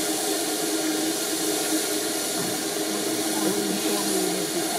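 Small steam tank locomotive standing with steam hissing steadily, with a faint voice partway through.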